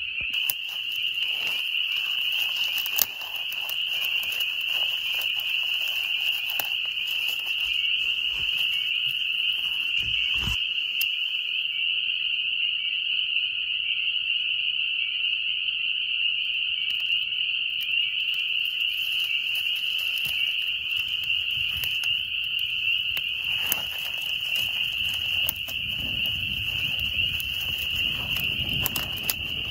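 A dense chorus of spring peepers: a continuous, loud, high-pitched wall of overlapping peeps. Scattered faint clicks and a short knock about ten seconds in.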